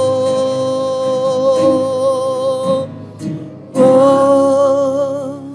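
Worship song: a singer holds a long sung note, breaks off about three seconds in, then holds a second long note with a slight waver, over instrumental accompaniment.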